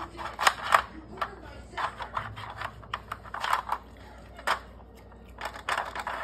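Plastic dog puzzle feeder clacking and rattling as a dog noses at its sliding covers, in short bursts of clicks about every second.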